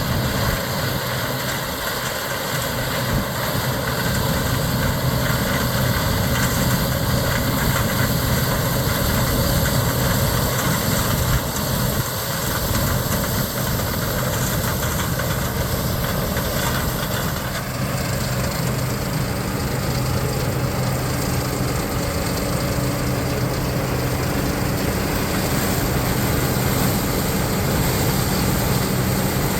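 1983 Gleaner L3 combine running steadily while harvesting corn, its Allis-Chalmers 670T turbocharged six-cylinder diesel engine droning under load. A higher hiss grows a little stronger about two-thirds of the way through.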